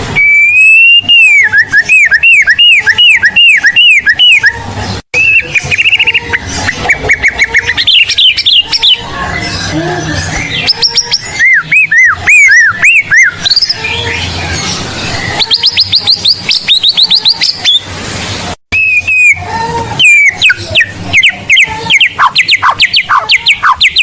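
White-rumped shama (murai batu) singing loudly and without pause, pouring out its learned repertoire. The song is a fast run of clear whistled phrases: arching rising-and-falling notes, rapid strings of repeated notes and high trills, with two brief breaks.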